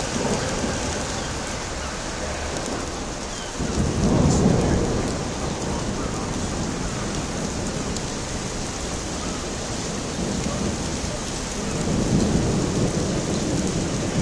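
Heavy rain falling steadily with thunder rumbling: a loud rumble rises about three and a half seconds in and fades over a couple of seconds, and another swells near the end.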